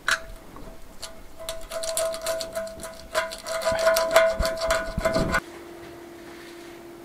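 A plastic scraper scraping silicone off a porcelain sink in many quick short strokes, over background music with a held note. About five seconds in this gives way to a faint steady hum.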